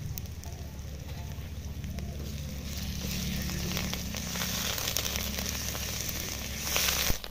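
Onions and masala paste sizzling in hot oil in a metal wok. The sizzle grows louder from about three seconds in as a steel spatula stirs and scrapes the pan, and it is loudest just before it cuts off.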